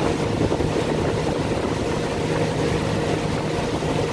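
Tow boat's engine running steadily at speed, with the rush of the churning wake behind it.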